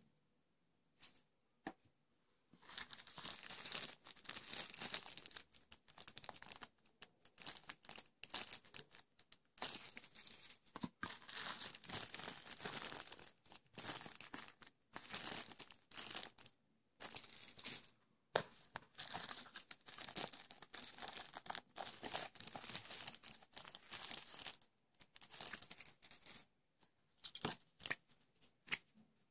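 Packaging being torn and crinkled by hand in irregular rustling bursts, starting about two and a half seconds in and going on with short pauses.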